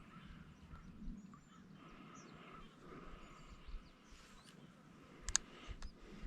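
Quiet outdoor ambience by a lake: short high bird chirps repeating every second or so over a faint steady background hiss, with a sharp click about five seconds in.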